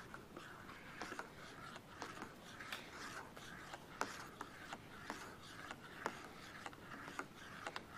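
Spoon stirring Alfredo sauce in a metal canteen cup, scraping and clicking against the cup's sides and bottom about two or three times a second.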